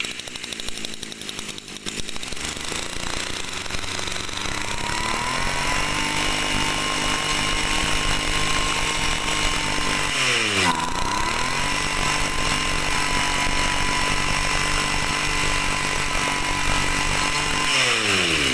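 Tanaka two-stroke brush cutter engine running unevenly at low speed, then revved up to a steady high-speed whine and held. About ten seconds in the throttle is let off briefly and opened again, and near the end it is released and the revs fall away.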